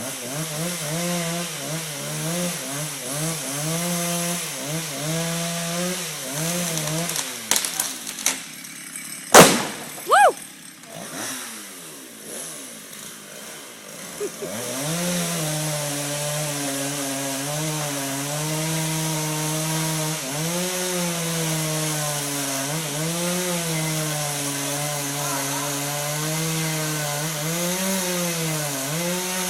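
Chainsaw cutting maple, its engine pitch wavering as it works under load. About a quarter of the way in the saw drops off and there is a loud sharp crack, then a second knock a second later. The saw then picks back up and runs steadily, cutting, to the end.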